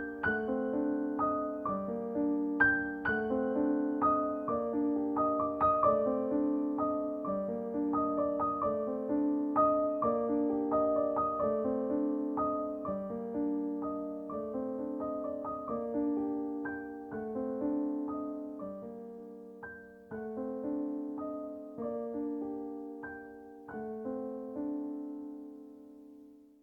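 Background music: a gentle solo piano piece of repeated struck notes, fading out over the last few seconds.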